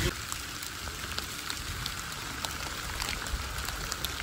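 Rain falling in a forest: a steady hiss with scattered single drops ticking close by.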